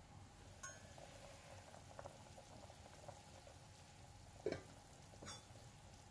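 Stainless steel pot lid lifted with a light clink, then winter melon soup bubbling faintly in the uncovered pot. A sharper knock about four and a half seconds in, and a smaller one just after.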